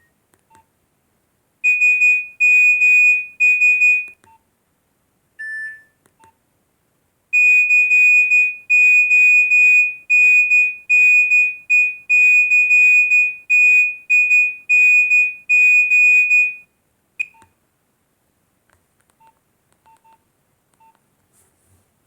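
Nokia 1208b mobile phone playing a monophonic beeping tone. Three short high beeps, then a single lower beep, then a long run of evenly spaced beeps at the same pitch that stops about seventeen seconds in.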